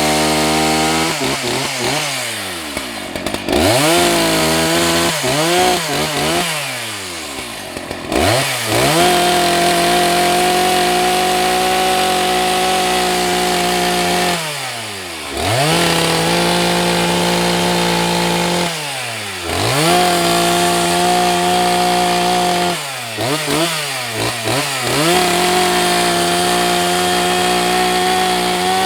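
Husqvarna 181 SE two-stroke chainsaw revved up and down several times, then held at a steady high speed in stretches of a few seconds, dropping back briefly between each, as it bucks firewood.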